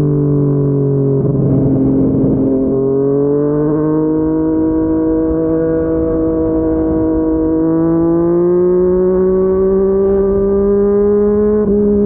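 Yamaha MT-09's inline-three engine breathing through a Yoshimura R55 slip-on exhaust while the bike is ridden. The engine note holds fairly steady under light throttle, rises slowly through most of the stretch, and eases off slightly near the end.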